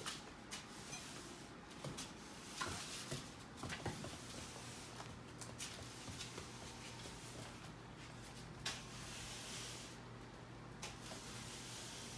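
Faint, scattered clicks of a puppy's claws on a hard plank floor, mixed with the soft swish of push-broom bristles sweeping over it.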